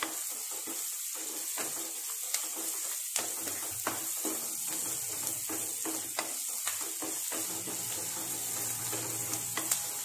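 Onions and curry leaves sizzling in oil in a nonstick kadai, stirred with a wooden spatula that scrapes and taps against the pan at an uneven pace. A low hum joins in during the last couple of seconds.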